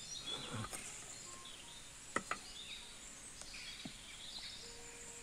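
Birds chirping on and off over a steady high insect drone, with one sharp knock about two seconds in.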